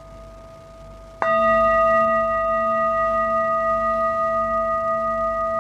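Metal singing bowl struck once with a mallet about a second in, over the faint ring of an earlier strike; the new strike rings on in several steady tones with a slow waver.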